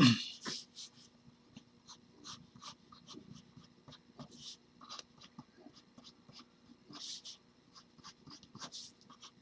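Pencil scratching on drawing paper in many short, uneven sketching strokes while a figure's layout is roughed in. A short, louder noise comes right at the very start.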